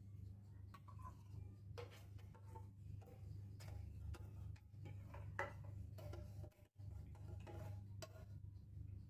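Faint, irregular clicks and scrapes of a kitchen utensil working thick sweetened condensed milk out of its tin into a bowl of crushed pineapple, with one sharper tap about halfway through. A low steady hum runs underneath.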